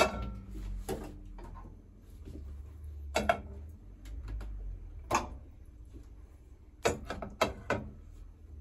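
A stainless-steel bowl set down on a steel counter with a sharp ringing clank, then a series of knocks and clunks as sea bream heads are placed into the metal bowl, two near the middle and three close together near the end. A low steady hum runs underneath.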